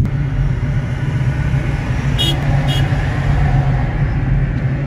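Steady low rumble of road traffic, with two short high beeps about two seconds in, half a second apart.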